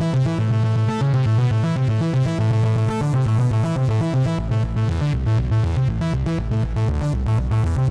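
Ethera Soundscapes 2.0 arpeggiator synth patch played from a keyboard: a fast, evenly stepping electronic arpeggio. A deeper bass line joins about halfway through.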